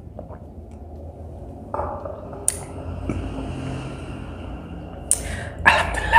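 Close-miked eating noises with a few sharp clicks of utensils against a dish, and a short vocal sound near the end.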